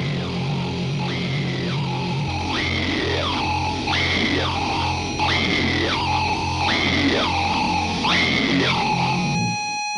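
Loud, distorted electronic music with a pulsing bass pattern and a wailing siren-like sweep that rises and falls about once a second. Near the end it cuts off, leaving a steady held tone.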